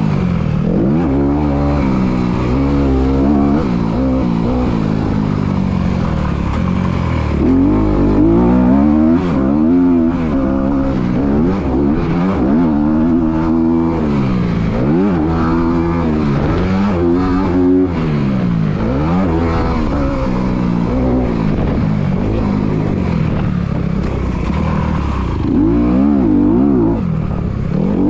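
Dirt bike engine, heard close up from the bike, revving up and down over and over as the throttle is opened and shut. The rises and falls come about every second through the middle stretch.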